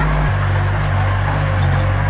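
Diesel engine of heavy earthmoving equipment running steadily, its low note shifting slightly about a quarter second in, over a steady mechanical noise.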